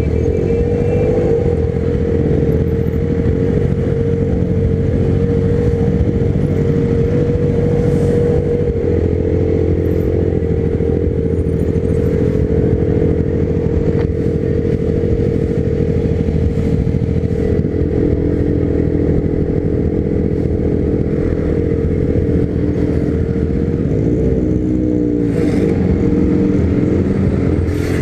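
Honda CB300 motorcycle's single-cylinder engine running steadily under way, its note held even for most of the time and then rising and falling about 25 seconds in as the revs change.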